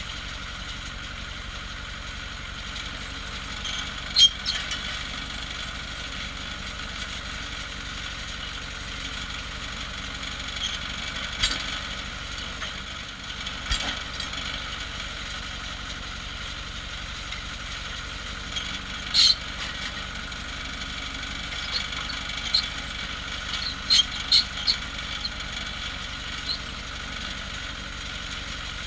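Engine of a cable percussion drilling rig running steadily, with a few sharp metal clanks at irregular intervals.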